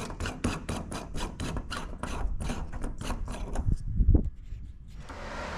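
Rapid rasping clicks, about five a second, as a light globe is twisted out of its socket in an outdoor light fitting, then a single thump about four seconds in.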